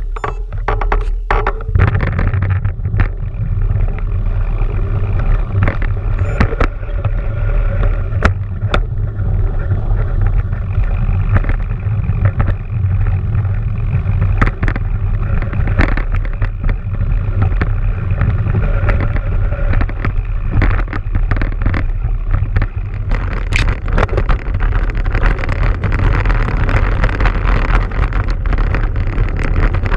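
Wind buffeting the microphone of a riding mountain biker's camera, a steady loud rumble, with many sharp knocks and rattles from the bike over rough ground.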